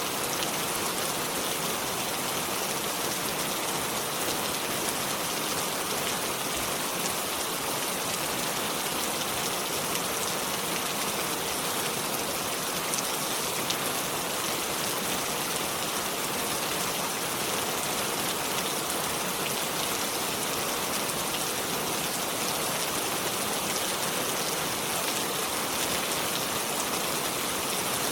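Steady rain falling, an even hiss that holds constant throughout, with faint scattered drop ticks.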